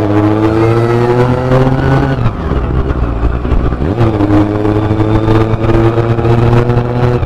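Honda CB-1 400's inline-four engine running under way. Its pitch rises for about two seconds, falls away, dips again about four seconds in, then holds steady.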